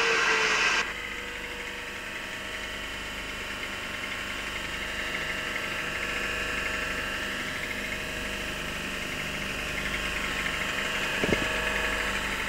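A train's engine idling steadily. A loud rushing noise with a slowly falling tone cuts off abruptly within the first second, and there is a single sharp knock near the end.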